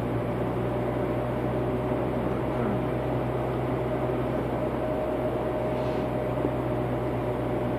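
Steady drone of a car's engine and tyres on the road, heard from inside the cabin while driving at an even speed, with a constant low hum.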